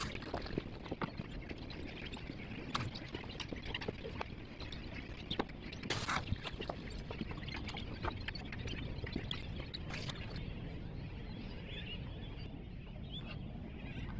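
Seabirds calling around the boat, with scattered short clicks and scrapes of a fillet knife working on a plastic cutting board.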